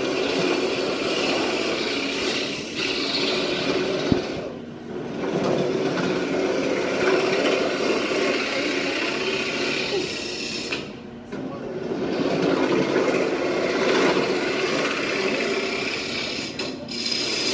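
A turning tool cutting into a spinning wood blank on a running wood lathe: a steady scraping hiss over the lathe's even hum. The cut eases off briefly twice and again near the end.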